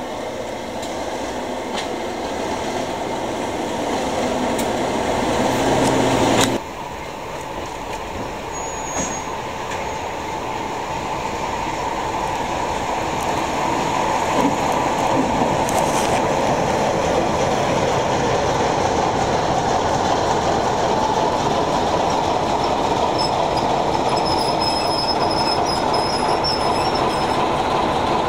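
Class 37 diesel locomotive's English Electric engine running and building up louder, cut off abruptly about six seconds in. Then a Peak-class diesel locomotive and its coaches roll into the platform, engine and wheel noise growing steadily louder, with a thin high squeal near the end.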